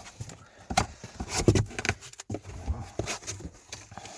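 Handling noise from a cardboard box being moved and handled: irregular knocks, taps and scrapes, with the loudest knocks about one and a half seconds in and around three seconds.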